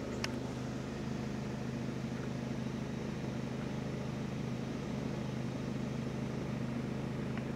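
Car running, heard from inside the cabin: a steady low engine hum with a light haze of road and cabin noise.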